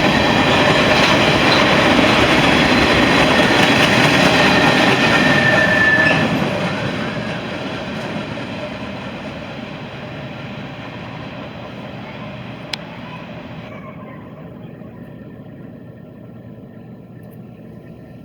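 Loaded CSX mixed freight train rolling past, its wheels clacking over the rail joints, with a short wheel squeal about five seconds in. After about six seconds the train moves off and the sound fades away.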